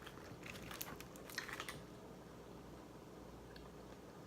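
Eating sounds close to the microphone: a quick run of small clicks and smacks through the first second and a half, then only a faint hush.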